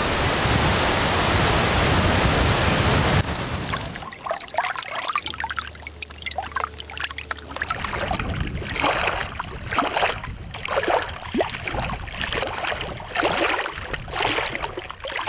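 Water rushing over rocks in a steady, loud rush that cuts off about three seconds in. After a quieter stretch, irregular splashes and lapping of water at a reservoir's edge from about eight seconds on.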